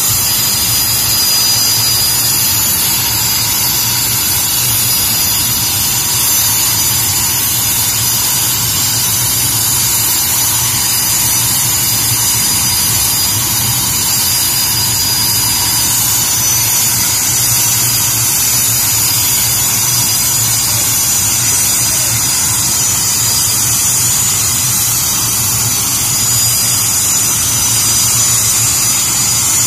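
BAE Hawk jet's turbofan engine running steadily, a high-pitched whine over a constant hiss that neither rises nor falls.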